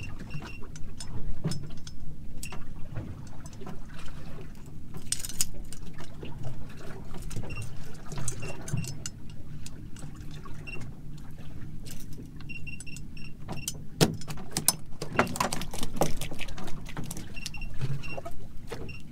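A boat's motor running steadily while under way, with frequent knocks and rattles from the hull and loose gear. Short high beeps repeat now and then.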